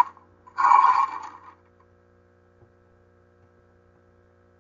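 A short phrase of recorded speech from an English textbook dialogue about half a second in, then a pause holding only a faint steady electrical hum.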